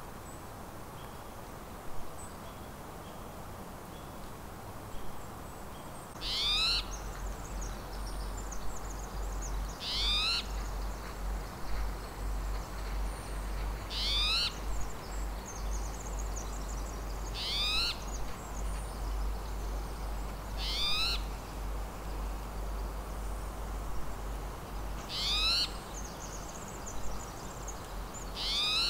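Spotted towhee calling: a short rising call repeated seven times, one every three to four seconds, beginning about six seconds in.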